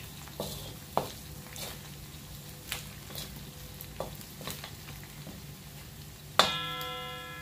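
Diced pork belly sizzling in a metal wok, stirred with a wooden spatula that scrapes and knocks against the pan about once or twice a second. Near the end one loud knock sets the wok ringing with a fading metallic tone.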